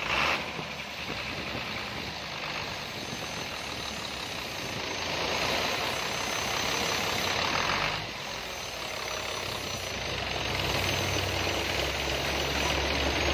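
Hino 500 truck's diesel engine idling, running again after a cylinder head gasket replacement. A rushing noise is louder for a few seconds in the middle, and the low rumble grows stronger near the end.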